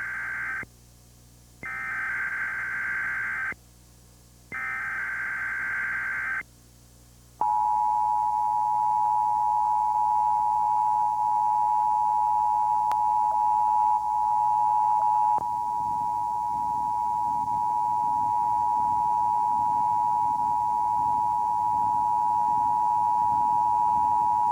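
Emergency Alert System test signal: three bursts of the digital SAME header data tones, each about two seconds long, followed from about seven seconds in by the steady two-tone EAS attention signal.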